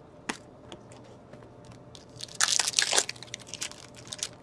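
Trading cards being handled and flicked through by hand, with light clicks and a short burst of crisp crinkling and rustling about two and a half seconds in.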